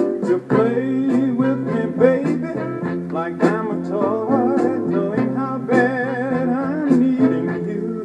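Soul record playing from a vinyl single on a turntable: a band with a steady drum beat under a wavering melody line and held lower notes.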